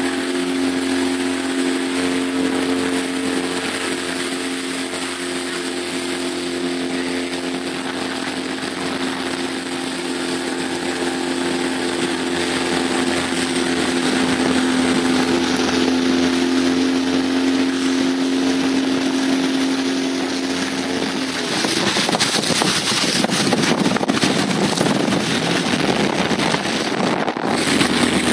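Motorboat engine running at a steady speed, a constant hum, with wind and water noise around it. About 21 seconds in, the engine hum is covered by a louder rush of wind buffeting and water splashing.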